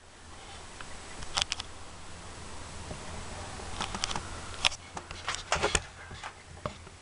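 Pulsed DC TIG arc on steel from a Miller Diversion 165 inverter welder: a faint steady buzz with scattered sharp crackles and clicks, a few together about a second and a half in and more in the second half.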